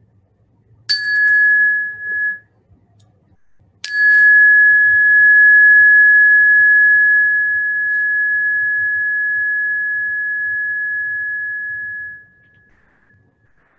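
A meditation bell struck twice, marking the end of a sitting practice. The first strike is damped after about a second and a half. About three seconds later a second strike rings out with one clear high tone and slowly fades over about eight seconds.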